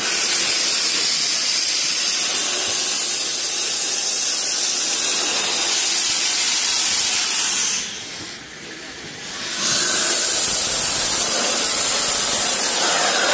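Nilgiri toy train's steam locomotive letting off steam: a loud, steady hiss that dips briefly about eight seconds in, then starts again.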